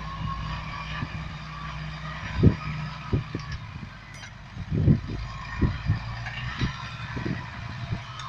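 Massey Ferguson tractor's diesel engine running steadily while its reversible plough is lifted out of the ground. Several short low thumps come through on top, the loudest about two and a half and five seconds in.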